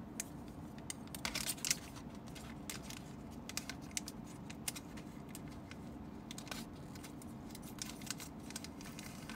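Clear plastic bag of small plastic figure parts being opened and handled: light crinkling with scattered small clicks of the pieces, over a faint steady hum.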